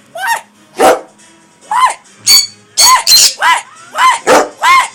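Conures screeching: a loud, rapid series of calls, each rising and then falling in pitch, coming faster about two seconds in.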